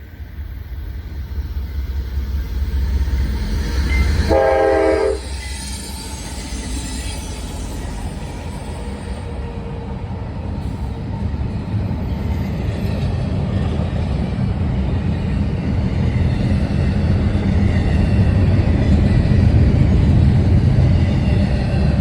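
Diesel freight locomotives approaching, a GE AC44 and an EMD SD70 leading: one short horn blast about four seconds in, then the low rumble of the diesel engines growing steadily louder as the units draw near.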